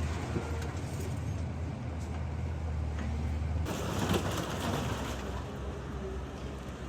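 Bulldozer diesel engine running steadily at a low note, which shifts a little over halfway through, with pigeons cooing over it.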